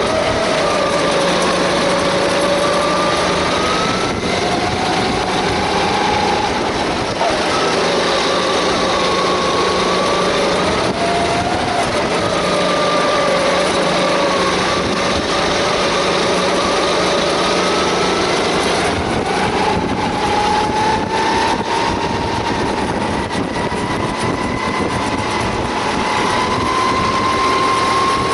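Onboard sound of a Sodi rental kart's four-stroke engine under way. Its pitch drops into the corners and rises as it pulls out of them, several times, then climbs steadily for the last third as the kart accelerates down a straight.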